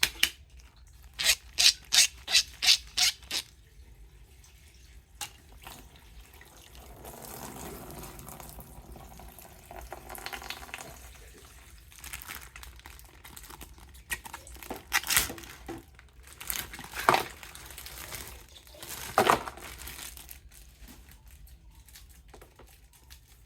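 Toy packaging being handled and opened: a quick run of sharp clicks at the start, then a stretch of crinkly rustling, and a few louder separate snaps later on.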